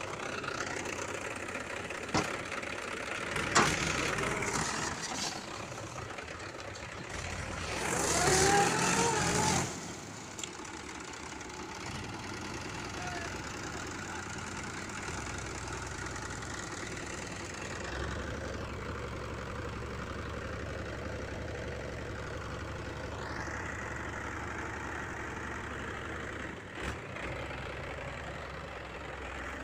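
Diesel tractor engine running steadily at low revs. About eight seconds in, a person's voice rises loud for a couple of seconds. From around eighteen seconds the engine note deepens and strengthens as the hydraulic tipper raises the loaded trolley to dump its soil.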